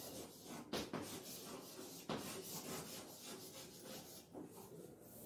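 Chalk scratching faintly on a blackboard as words are written, with a couple of sharper taps of the chalk against the board.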